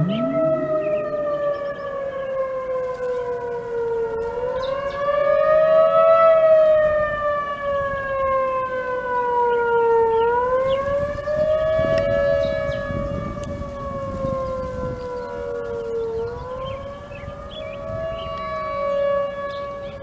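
Federal Signal Thunderbolt 1000 and Model 2001 tornado sirens sounding together in a test. A siren winds up from a low pitch at the start, then a wail rises and falls about every six seconds. The uploader suspects the wail is the 2001-DC slipping into Wail mode when it switches to DC power.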